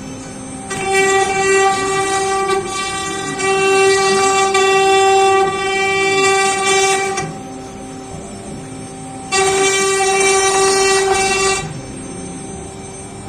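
CNC router spindle whining at a steady high speed, growing much louder and harsher twice as the bit cuts into the door panel, then easing back to a lighter whine between cutting passes.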